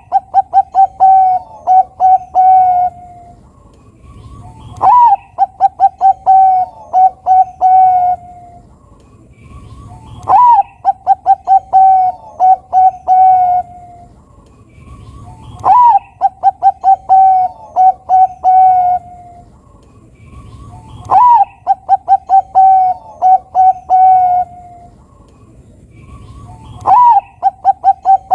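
Zebra dove (perkutut, Bangkok strain) cooing its song. The same phrase repeats about every five and a half seconds: a high opening note, a quick run of short notes, then several longer, lower coos.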